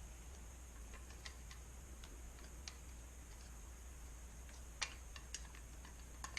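Light, scattered clicks and taps of plastic food-processor parts and grating discs being handled and fitted, with a few quick clicks together about five seconds in.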